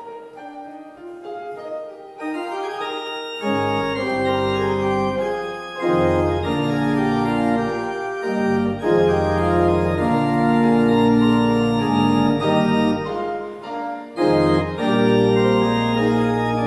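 Organ music in full held chords. Only the upper voices sound at first; sustained bass notes come in about three and a half seconds in, with brief breaks between phrases.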